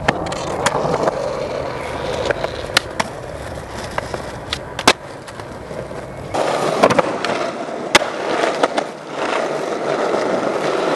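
Skateboard wheels rolling on concrete, with several sharp clacks of the board popping and hitting the ground. The rolling gets louder about six seconds in.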